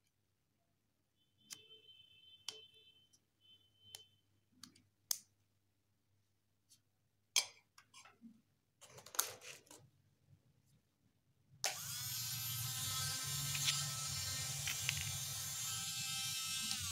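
Clicks and handling of a bur being fitted into a dental lab micromotor handpiece, then about two-thirds in the micromotor switches on and runs steadily with a high whine, the bur spinning free.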